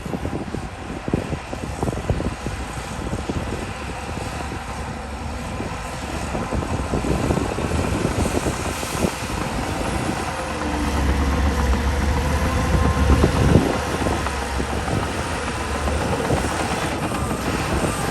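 Heavy diesel earthmoving machinery working, with repeated clanks and rattles and a deep engine rumble that grows louder about ten seconds in.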